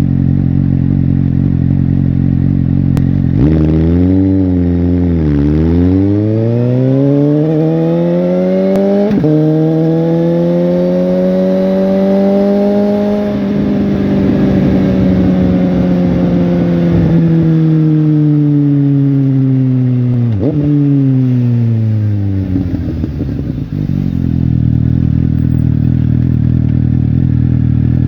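Suzuki GSX-S750's inline-four engine and exhaust running low, then winding up over several seconds and holding high revs. It falls away slowly with a short sharp blip partway down, then settles back to idle.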